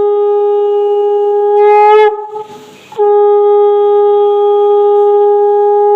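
Conch shell (shankha) blown in two long, loud, steady blasts, each lifting slightly in pitch as it ends, with a short breath between them about two seconds in.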